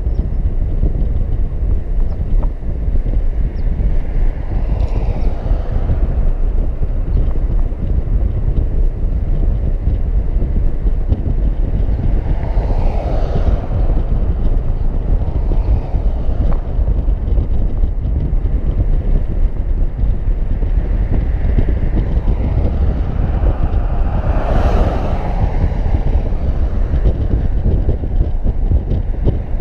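Wind rumbling on the microphone of a car driving through city streets, with steady road noise. Other vehicles swish past three times, about 5, 13 and 25 seconds in.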